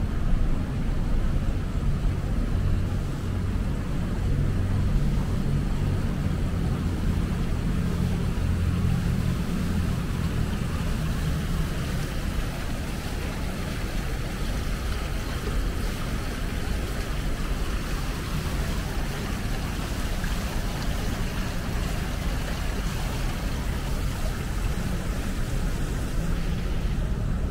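Steady low engine rumble under an even hiss, with the hum strongest through the first dozen seconds and then easing.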